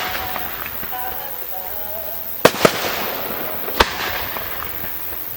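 Aerial fireworks shells bursting: two sharp bangs in quick succession about two and a half seconds in and a third about a second later, over a steady crackle and hiss of burning stars.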